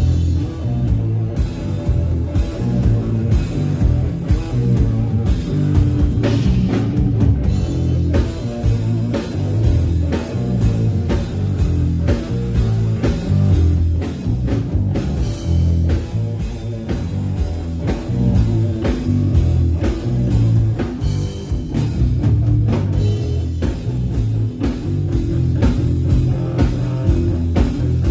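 A rock band playing at sound check: drum kit with frequent cymbal and snare hits, electric guitar and a heavy bass line.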